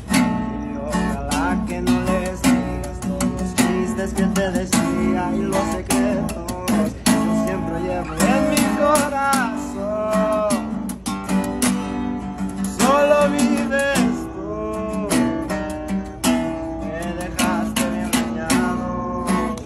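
An acoustic guitar strummed and picked together with an acoustic bass guitar playing the low line, a two-instrument sierreño-style song accompaniment.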